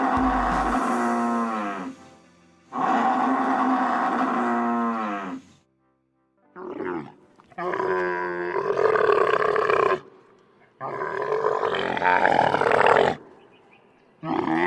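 A series of five long, loud animal calls. The first two are pitched and fall in tone like moos; the last three are rougher and noisier, like roars.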